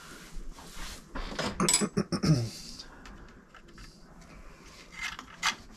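Metal clinks and rattles of an aquastat relay and its steel case being handled, with a sharp ringing clink about two seconds in and a few light clicks near the end.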